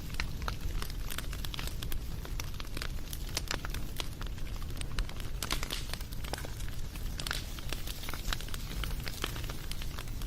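Wood fire crackling: irregular sharp pops and snaps over a steady low rumble of the burning.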